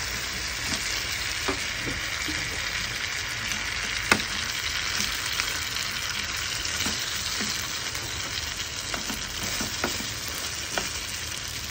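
Eggplant omelette sizzling steadily in hot oil in a small rectangular frying pan. Scattered small clicks, with one sharper click about four seconds in.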